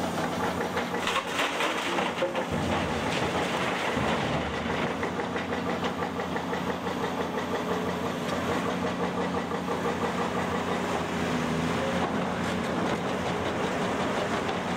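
Diesel engine of a heavy construction machine running steadily, with a louder, rougher stretch a second or two in.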